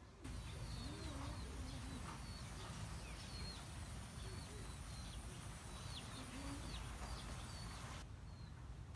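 Birds chirping and a hen clucking over a steady outdoor hiss: scattered short, high, falling chirps and a few low wavering clucks.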